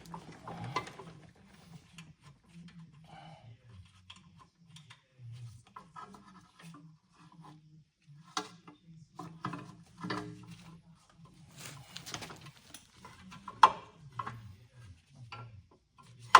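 Scattered clicks, knocks and scrapes of hand tools and metal parts being worked on a brake caliper, with one sharper knock near the end.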